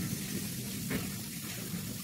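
Electrolysis rust-removal bath fizzing: a steady hiss of gas bubbles rising through the solution as the current strips rust, over a low hum.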